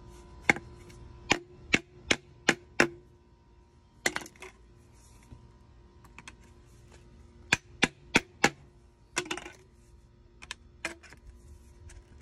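Sharp knocks in quick runs of hard PVC striking concrete: a PVC pipe standing in its coupling being tapped down on a concrete floor to drive it into the tight coupling.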